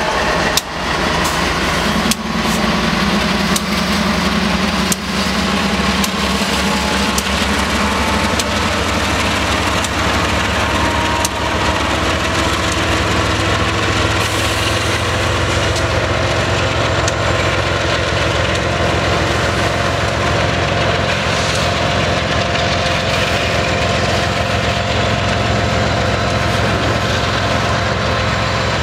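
Freight train passing at close range: the SOO SD60 and BNSF ES44C4 diesel locomotives go by in the first seconds with their engines running and a few sharp knocks, then a string of empty autorack cars rolls past with a steady wheel-on-rail rumble.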